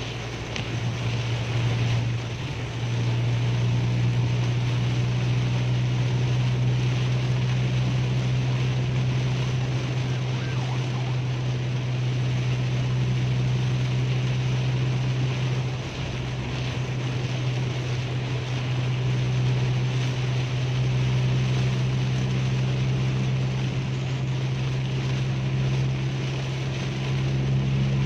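Inside a car cruising on a motorway in heavy rain: a steady low drone of engine and road noise under a constant hiss of rain and tyre spray.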